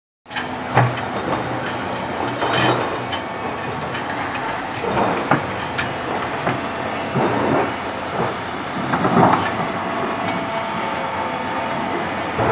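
Electric-driven Hyundai R800 hydraulic excavator loading a Terex TR70 haul truck: rock rattles and clatters into the steel dump body in several surges and knocks, over a steady machine hum.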